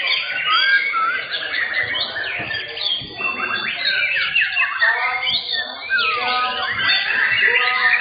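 White-rumped shamas (murai batu) singing, several at once: a dense, unbroken tangle of clear whistles, chirps and quick trills.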